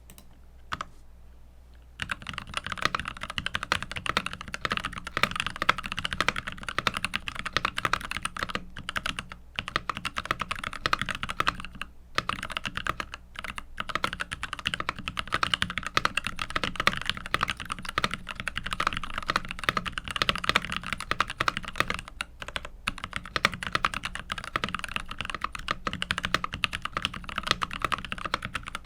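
Continuous fast typing on a mechanical keyboard fitted with Lychee linear switches: a dense run of keystroke clacks on the muted end for switches. The typing starts about two seconds in.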